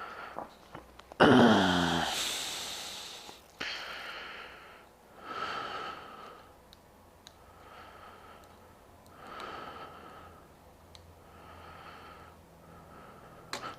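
A man sighing loudly, with a falling pitch, about a second in, then breathing audibly close to the microphone, one breath about every two seconds, with a few faint clicks.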